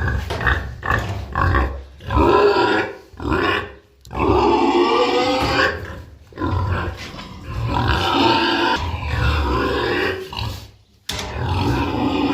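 Pigs calling loudly, a string of long, drawn-out calls with short breaks between them.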